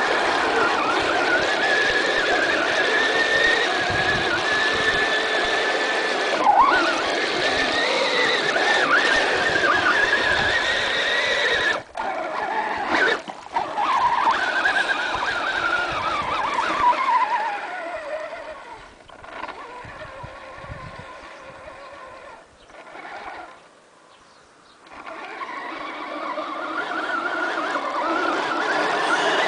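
Electric motor and gears of a radio-controlled model off-roader whining, the pitch rising and falling with the throttle. About two-thirds of the way through it eases off and goes quiet, then picks up again near the end.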